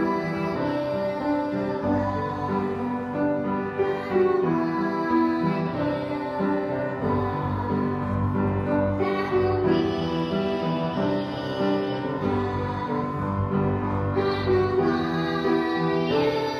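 Two girls singing a duet in sustained, changing notes, backed by a small live band with guitar and keyboard.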